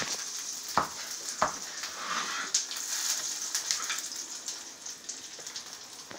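A kitchen knife chopping on a cutting board in a few separate knocks, over a steady high hiss.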